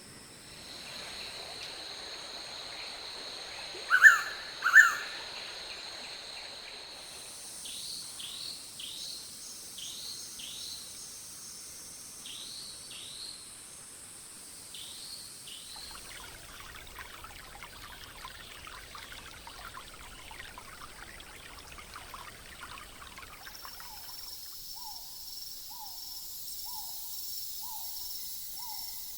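Tropical rainforest ambience in several cut-together recordings: a steady high insect and cicada drone with two loud bird calls about four seconds in, then a run of repeated falling chirps and a denser crackling stretch. Near the end a bird hoots steadily, a bit more than once a second.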